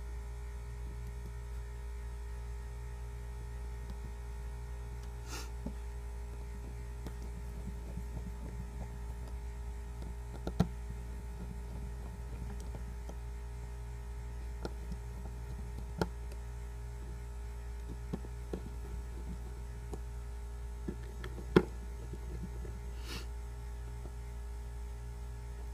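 Steady low electrical hum, with a few scattered small sharp clicks and taps from handling the Samsung Galaxy S3's parts during reassembly; the loudest click comes near the end.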